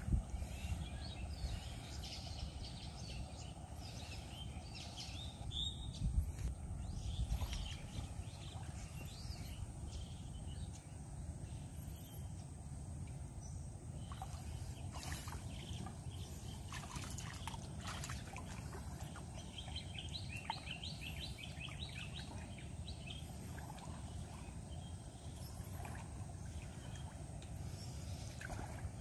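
Shallow water splashing and trickling as a man wades through a flooded paddy and pulls a long hooped ring net through it, with birds chirping throughout. The splashing is loudest at the very start and around six to seven seconds in.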